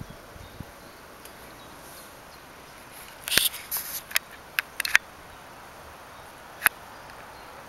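A cluster of sharp clicks and taps about three to five seconds in, with one more near the end, over a steady faint hiss.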